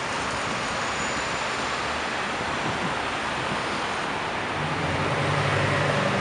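Road traffic noise: a steady rush of cars passing on a wet street. In the last second and a half a vehicle engine's low hum comes in and grows louder.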